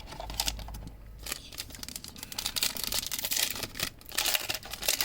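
Trading card pack's foil wrapper being handled and torn open: a fast, irregular run of crinkles and clicks, busiest in the second half.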